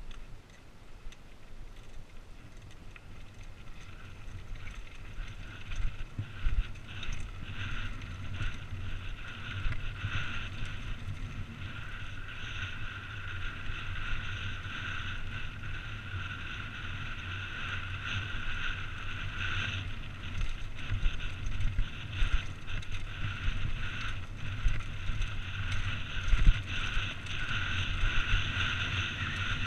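Mountain bike descending a rocky dirt trail: tyres rolling and crunching over loose gravel and the bike rattling over bumps, with wind noise on the microphone. The noise grows louder as the speed picks up, with a few harder jolts.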